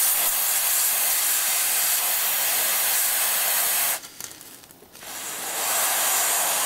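An air duster can held upside down, spraying liquid refrigerant as freeze spray in a steady hiss for about four seconds. It stops briefly, and a second spray starts about a second later and builds up again. The spray is chilling a TV mainboard's failing 3.3 V switch-mode supply to see whether cold brings the set to life.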